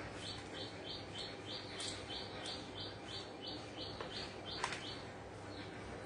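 Indian ringneck parakeet calling in a steady series of short, high chirps, about three a second, which stop about five seconds in. A sharp click sounds near the end of the chirping.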